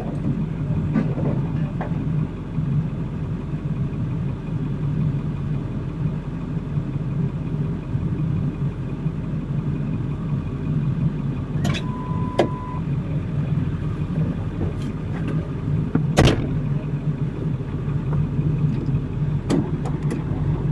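Vehicle engine running steadily at low revs, with a few sharp clicks or knocks and a short beep about twelve seconds in.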